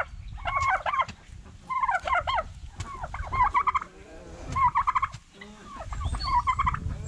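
Domestic turkey toms gobbling, about five short rattling gobbles in a row, each under a second long and roughly a second and a half apart.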